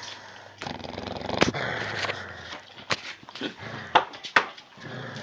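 Clumber spaniel puppies growling and snuffling as they play-fight over a plush toy, with a few short, sharp yips in the second half.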